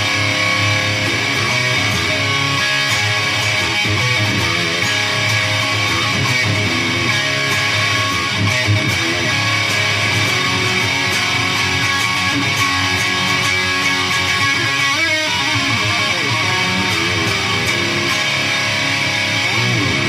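Electric guitar played continuously through a Peavey Triple XXX II tube amp head and 2x12 speaker cabinet, stopping abruptly at the end.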